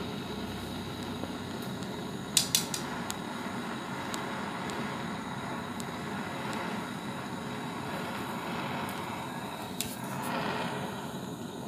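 Gas torch burning with a steady hiss under a steel spoon of melting scrap solder, while a metal rod clinks against the spoon: a quick cluster of sharp clinks about two and a half seconds in and another near the end.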